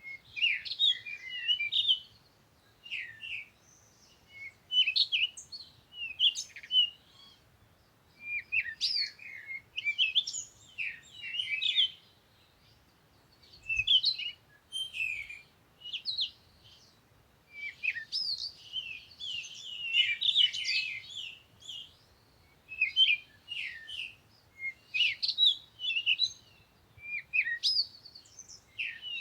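Songbirds chirping and singing in short, quick phrases of high trills and chirps, one burst every second or two with brief pauses between.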